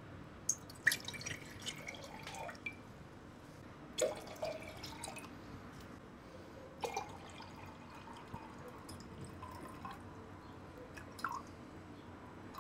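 Water poured in short, faint trickles and drips into a glass jar, topping it up to weight. There are scattered small splashes, some with brief rising plinks.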